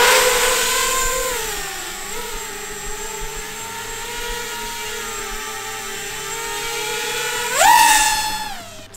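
ImpulseRC Apex 5-inch FPV freestyle quadcopter on T-Motor motors in flight: its motors and propellers make a steady high whine that sinks slightly about two seconds in. Near the end the whine climbs sharply on a burst of throttle, the loudest moment, then drops away.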